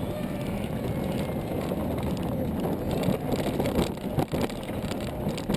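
Kids' ride-on car moving along the pavement: a steady rumble of its drive and wheels with scattered rattles and knocks, picked up close by a camera fixed to the car's body.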